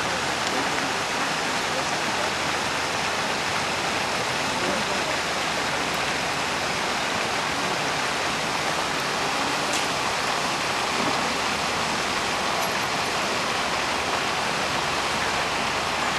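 Fountain jets spraying up and splashing back onto the lake surface: a steady, even hiss of falling water.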